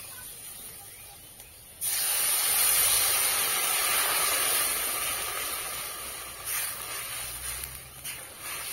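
Water poured into a hot karahi of frying spiced potatoes: a sudden loud sizzling hiss about two seconds in that slowly dies down, with a few short knocks of the spatula near the end.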